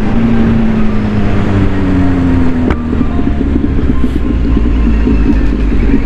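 Kawasaki Z800 motorcycle's inline-four engine running at road speed, its pitch rising slowly for a couple of seconds. A single sharp click comes about two and a half seconds in, and the engine then runs on steadily over a low rumble.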